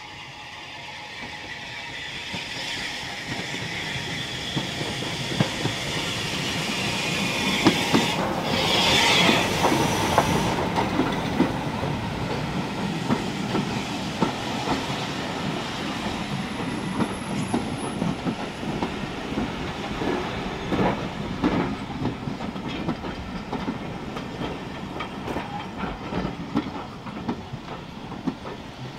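A steam locomotive and its train approach and pass close by, growing louder, with a loud hiss as the engine goes past about eight seconds in. The carriages then roll past, their wheels clicking over the rail joints.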